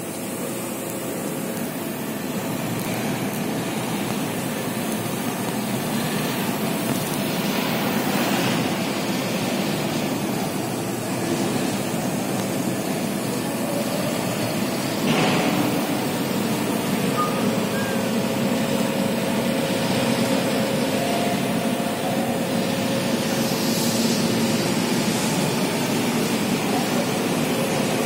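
Radial drilling machine's open gearbox running, its gears meshing and spinning, building up over the first few seconds to a steady mechanical running noise. A short louder clatter comes about halfway through.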